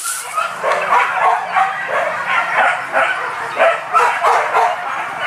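Several hunting dogs barking and yelping in rapid, overlapping calls while on a chase.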